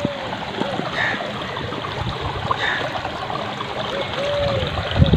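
Irrigation water from a tubewell gushing steadily out of a concrete pipe outlet and splashing into a flooded field bed, a continuous rushing noise.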